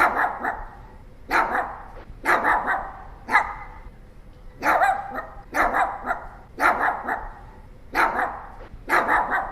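Pomeranian barking: short, high-pitched barks about once a second, some coming in quick runs of two or three.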